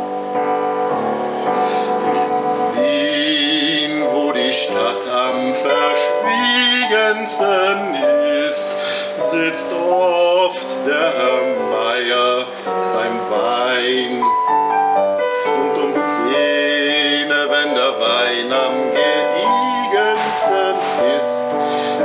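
Music with a sustained keyboard accompaniment and a melody line that wavers in vibrato above it.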